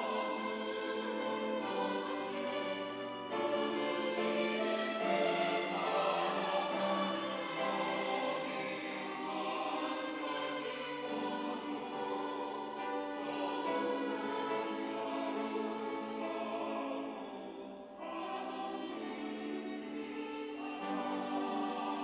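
Mixed church choir of men's and women's voices singing an anthem in sustained chords, with a brief break between phrases near the end.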